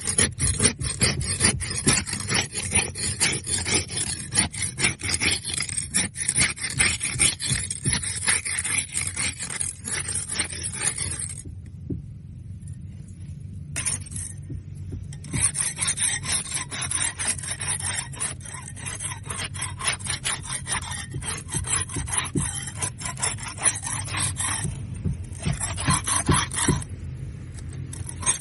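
Barnacles being scraped off a boat hull: rapid, rasping scrape strokes, stopping for a few seconds near the middle and briefly near the end.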